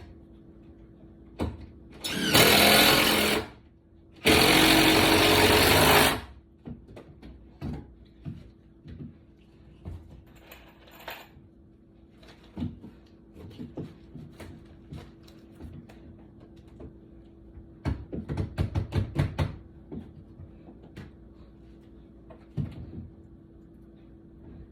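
A power tool runs in two short bursts, the second about two seconds long. Scattered knocks of hand work follow, then a quick rattling run of about ten strokes.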